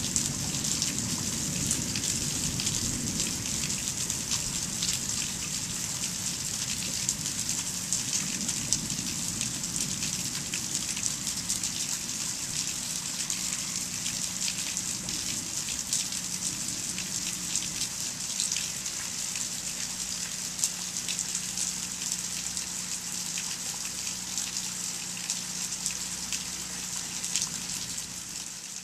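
Steady rain falling in a night thunderstorm, a dense hiss full of tiny individual drop ticks. A low rumble dies away over the first few seconds, and the rain fades out at the very end.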